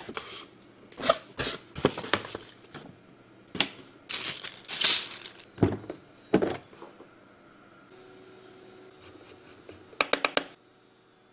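A keyboard being unboxed: the box lid and a clear plastic dust cover are handled, with knocks and plastic crinkling. About ten seconds in comes a quick run of clicks as the keyboard's metal rotary knob is turned.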